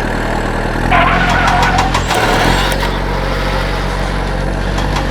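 Tractor engine running steadily, with sharp clicks over it.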